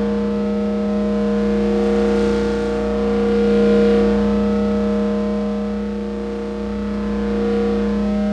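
Electronic synthesizer drone: several steady tones held together, a strong low tone under a higher one, over a low rumble, swelling and easing slowly in loudness.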